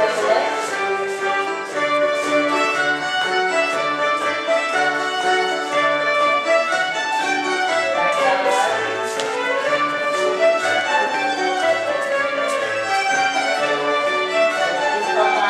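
Bush dance music for a quadrille: a fiddle carries the tune over a steady bass beat.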